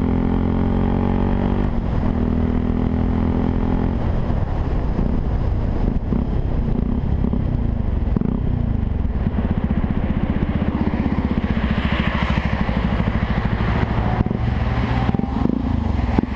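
Yamaha WR 125 R's single-cylinder four-stroke engine running through an aftermarket Takkoni exhaust, holding a steady note for about four seconds and then changing pitch unevenly.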